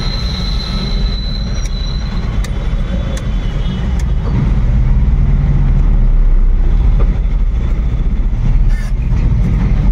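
Engine and road noise of a small goods delivery vehicle on the move: a steady low rumble that grows louder about halfway through and eases again near the end.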